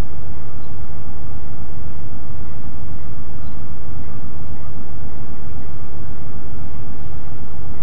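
Diesel-electric locomotive engine running steadily close by: a loud, even low rumble with a faint steady whine above it.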